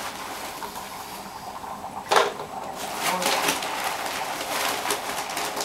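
Dry ice dropped into a pot of boiling water, bubbling and hissing vigorously as it throws off fog, with a sudden louder surge about two seconds in.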